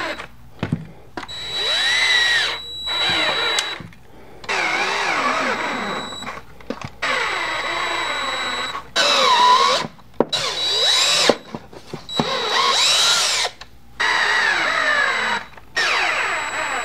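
Cordless drill tightening the bolts of a wooden table's legs and frame in about eight short runs of one to two seconds each. The motor's pitch rises and falls within each run as the trigger is eased, so the bolts are snugged down without being over-tightened.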